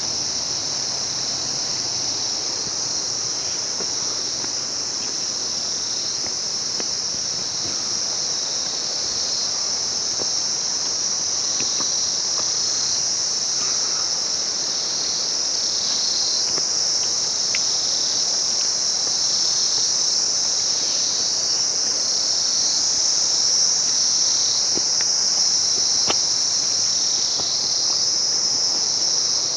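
A loud, steady chorus of insects, one continuous high-pitched shrill that grows slightly louder toward the end, with a few faint clicks over it.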